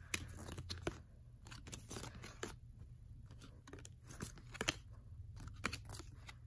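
Baseball cards being flipped through by hand: faint, irregular clicks and slides as cards are pushed off the stack one after another.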